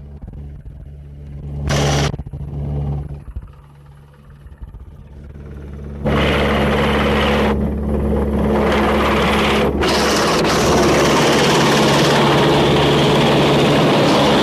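Rescue helicopter hovering low overhead, its engines and rotor giving a steady low drone. About six seconds in, a loud rushing noise joins it and continues to the end: the rotor downwash hitting the microphone.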